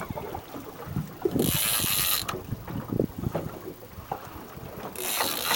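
Big-game fishing reel ratcheting in quick clicks while a hooked blue shark pulls line off it, with two short bursts of hiss about a second and a half in and near the end.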